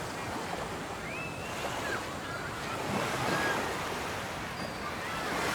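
Beach ambience: ocean surf breaking and washing in as a steady rush, with a few faint high chirps over it.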